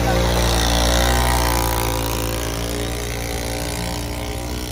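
An engine running steadily, loudest about a second in and easing off a little after.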